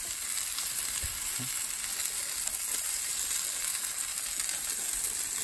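Small steaks searing in a hot cast-iron skillet, a steady sizzle.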